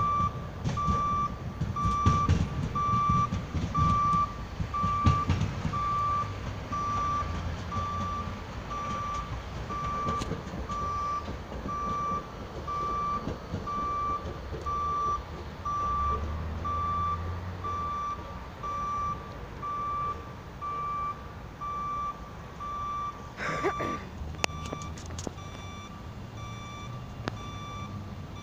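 Reversing-type warning beeper sounding a single-pitched beep over and over at an even pace, a little more than once a second. A low rumble runs underneath, with a brief clatter of clicks about 23 seconds in.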